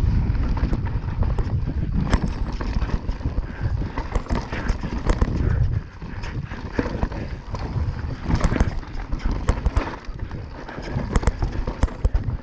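Mountain bike descending a rough dirt and gravel trail at speed: tyre rumble and wind buffeting the rider's camera microphone, with frequent rattling clatter and knocks from the bike over the bumps. It is loudest in the first half.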